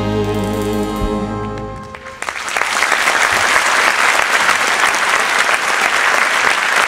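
A big band holds its final sustained chord, which cuts off about two seconds in. The audience then breaks into steady applause.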